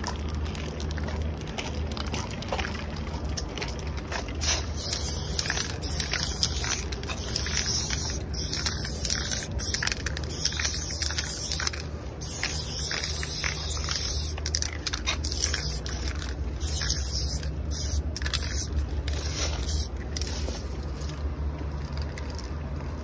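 Aerosol spray paint can fitted with a fat cap, hissing in a run of short and longer bursts as the strokes of a graffiti tag are sprayed, stopping near the end. A low steady rumble lies underneath.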